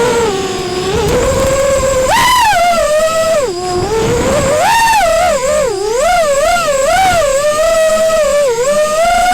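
FPV quadcopter's brushless motors whining, heard through the video transmitter's onboard microphone. The pitch rises and falls with throttle, with a run of quick up-and-down blips about twice a second in the second half.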